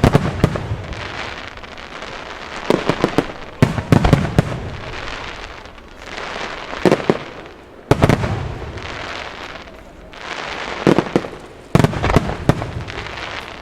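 Aerial firework shells bursting, a string of sharp booms a second or a few seconds apart, some in quick clusters, each trailing off in a long rumbling echo.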